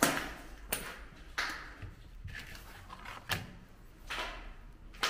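Footsteps crunching on a debris-strewn floor: seven sharp steps at an even walking pace, roughly one a second.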